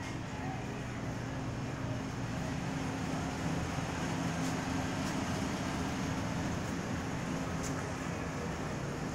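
Steady low hum and rushing room tone of an empty restaurant, with no diners' voices or clatter, and a faint tick twice.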